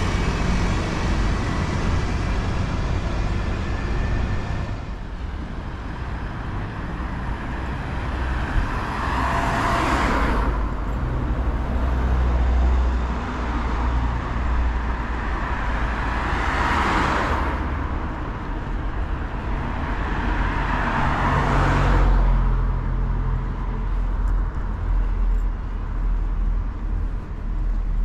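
Street traffic: a low engine rumble throughout, with vehicles passing close by one after another, three passes swelling and fading about ten seconds in, near the middle and about two-thirds of the way through.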